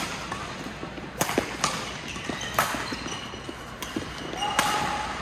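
Badminton rally: several sharp racket strikes on the shuttlecock, a second or two apart, with short squeaks of shoes on the court floor between them.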